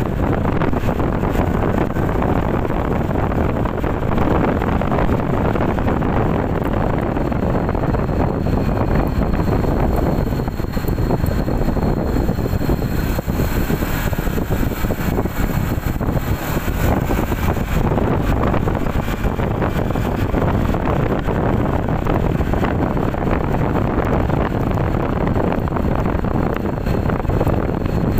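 Wind buffeting the microphone of a moving motorcycle, a steady rush over the drone of its engine and tyres on the road.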